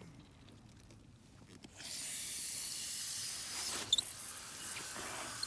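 Garden hose turned on full blast: the water comes on suddenly about two seconds in and sprays with a steady hiss.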